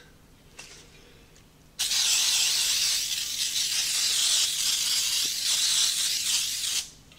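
Aerosol can of baking spray with flour giving one continuous hiss of about five seconds, starting about two seconds in, as it sprays into a cake pan.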